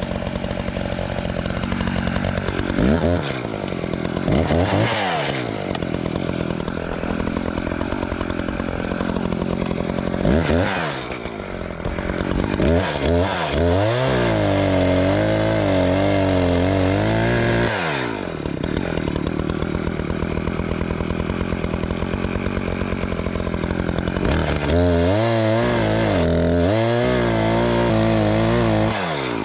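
Gas chainsaw cutting dry ponderosa pine logs into firewood rounds: it idles, blips up a few times, then runs at full throttle through two longer cuts, the first about halfway through and the second near the end, the engine note wavering under load in the wood and falling back to idle between cuts.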